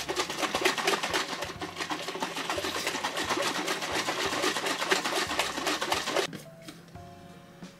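Protein shake being shaken hard and fast in a plastic shaker bottle, a rapid run of sloshing rattles that stops suddenly about six seconds in.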